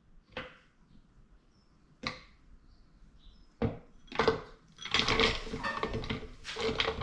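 Fruit dropping from a bowl into a blender cup: a few separate knocks, then from about five seconds in a run of clattering and rattling as the berries and grapes tumble in.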